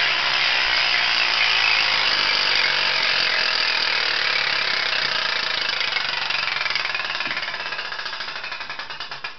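A vintage 1950s 24-inch wooden carnival gaming wheel spinning, its card clicker flicking over the rim's 120 pegs in a fast, continuous rattle. The rattle slowly gets quieter and, near the end, slows into separate clicks as the wheel winds down.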